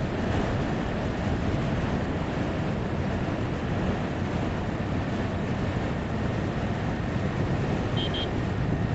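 Wind rushing over the microphone with road and engine noise from a motorcycle riding at speed, a steady roar with no rise or fall. Two short high beeps come close together about eight seconds in.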